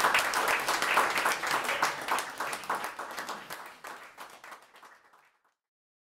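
Audience applauding, the clapping fading out to silence about five seconds in.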